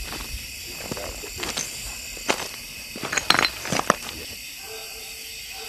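Steady high drone of summer-night insects (crickets and katydids), with a string of sharp clicks and rustles about two to four seconds in. A faint, long, low held note comes in near the end.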